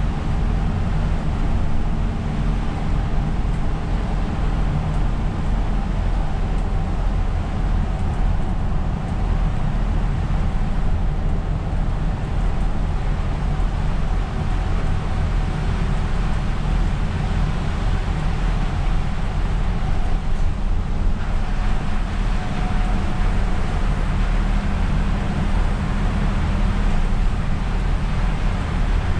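Isuzu Erga city bus under way on a rain-soaked road, heard from the driver's seat: a steady diesel engine drone with wet-road tyre hiss over it.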